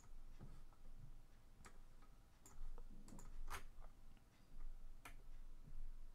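Faint computer mouse clicks, about half a dozen at irregular intervals.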